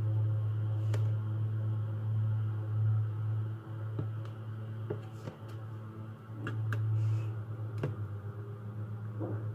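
Slime being played with by hand, giving scattered soft pops and clicks over a steady low hum.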